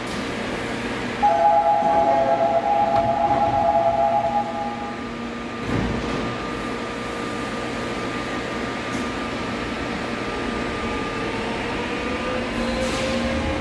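Electric subway train leaving a platform. A steady two-note door-closing warning buzzer, the loudest sound, comes in about a second in and lasts about four seconds; a thud follows, then the train rolls out with a slowly rising motor whine near the end.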